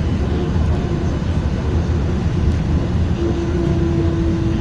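Steady low rumble of road traffic, with a steady hum that starts about three seconds in and holds for over a second.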